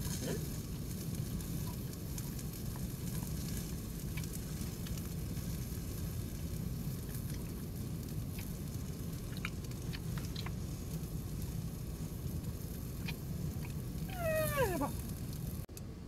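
Stray cat gives one falling meow about fourteen seconds in, begging for meat, over steady low background noise with a few faint clicks.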